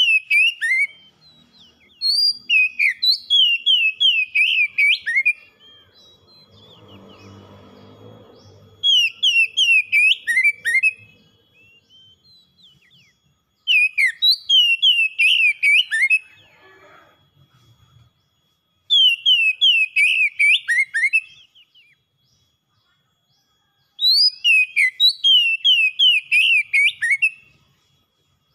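Oriental magpie-robin (kacer) singing in six loud bursts of fast, repeated whistled notes, each phrase a few seconds long with short pauses between. A faint steady high tone runs behind the song, and a faint low rumble comes about seven seconds in.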